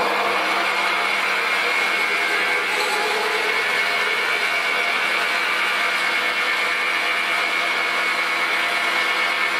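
Weiss WMP280V-F variable-speed metal lathe spinning up and then running steadily at about 580 rpm, a constant machine hum with a steady high whine over it.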